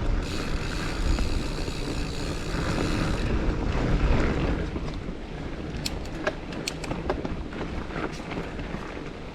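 Mountain bike rolling along a dirt trail, with wind buffeting the microphone and tyre noise. The rush is louder over the first four seconds or so, then drops, and scattered sharp clicks and rattles from the bike come through.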